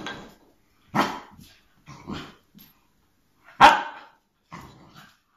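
Spaniel puppy giving a few short barks and growls in separate bursts, the loudest a little past halfway, frustrated at a beef bone it cannot get hold of.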